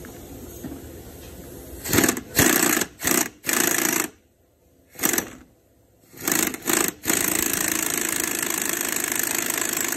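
Impact wrench driving a pulley installer tool, pressing the pulley onto the new power steering pump's shaft. It runs in several short bursts about two seconds in, then runs steadily from about seven seconds on.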